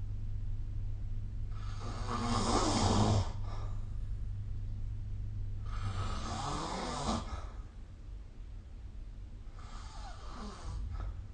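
A person snoring in sleep: three snoring breaths about four seconds apart, the first the loudest.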